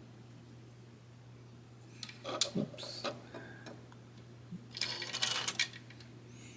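Small plastic model-kit parts clicking and rattling as they are handled and snapped together, a few clicks about two seconds in and a busier cluster of clicks around five seconds in.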